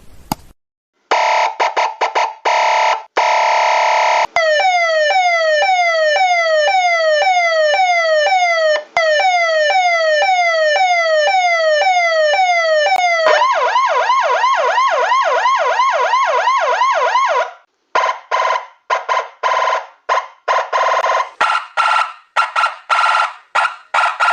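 A series of electronic emergency-vehicle siren patterns, one after another. First a fast pulsing tone, then repeated falling sweeps about one and a half a second, then a quicker up-and-down warble. Near the end come choppy, stuttering bursts.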